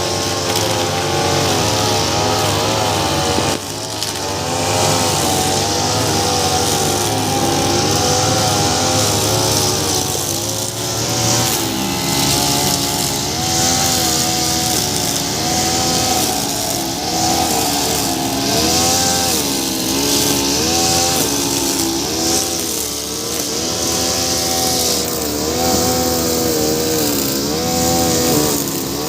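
Two-stroke brush cutter running at high speed, its engine pitch rising and falling again and again as the steel cable cutting line bogs in the grass and speeds up again.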